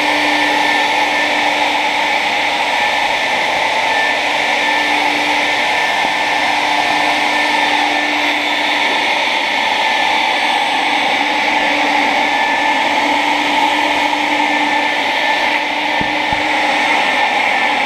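Canister shop vacuum running steadily and loudly, sucking up dry leaves and debris through its hose, with a constant motor hum and a high whine over the rush of air.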